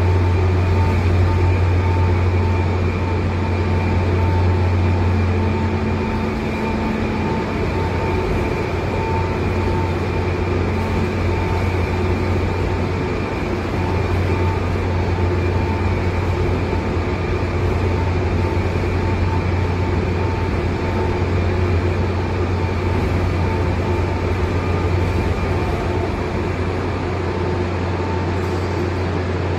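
100-tonne double-girder overhead crane's bridge travelling along its runway rails, with a steady low hum from its travel drive and faint steady whine tones above it.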